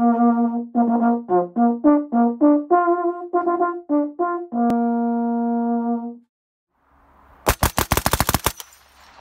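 A brass call of held and short notes on a few pitches, lasting about six seconds. After a short silence, a burst of machine-gun fire comes as a rapid, even string of shots about a second long, with echo.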